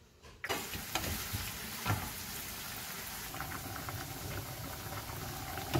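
Pot of lentils boiling hard on a gas hob, bubbling steadily, starting suddenly about half a second in. A wooden spoon knocks against the pot a few times in the first two seconds.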